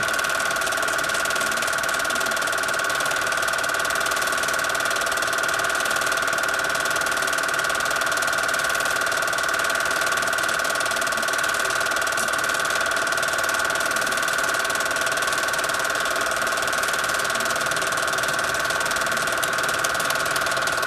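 Home-movie film projector running: a steady mechanical clatter from the film-advance mechanism with a constant whine.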